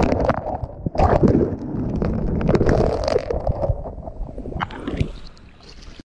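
Small waves surging and washing back over a pebble beach right at the microphone, with water splashing over it, a low rumble and many sharp pebble clicks. The wash fades away near the end.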